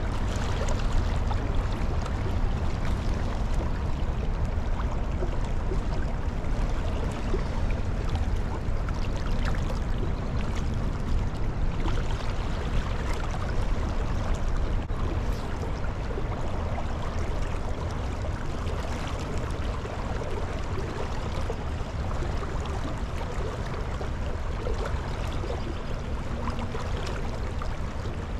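Creek water running steadily over a streambed, an even rushing noise with a heavy low rumble.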